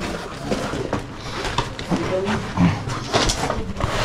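A person grunting and breathing hard with effort while crawling through a tight stone passage, with irregular scraping and rustling of clothing and gear against the rock.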